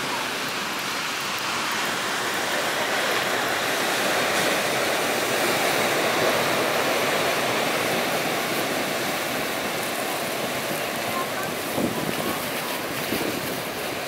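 Ocean surf breaking and washing up a beach of black lava pebbles: a continuous rush of waves that swells a little in the middle and eases off toward the end.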